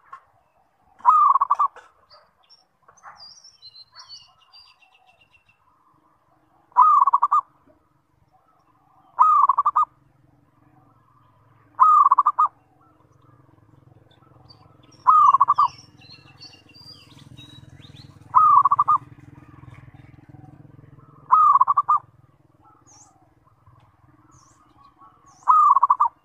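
Zebra dove (perkutut) cooing: eight short, loud bursts of its rolling coo, a few seconds apart. Faint chirps of small birds sound between the coos.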